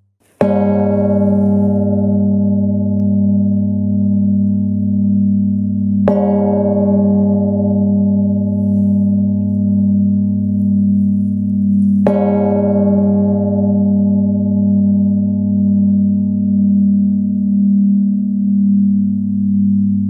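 A 4-ton Russian bronze church bell from the Yaroslavl foundry is struck three times, about six seconds apart. Each stroke rings on in a long, deep hum that wavers slowly and carries under the next stroke.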